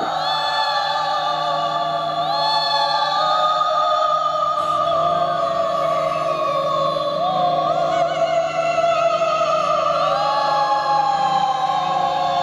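Eerie wordless singing: several voice-like notes that each swoop up into pitch and then hold, overlapping one another over a low steady drone.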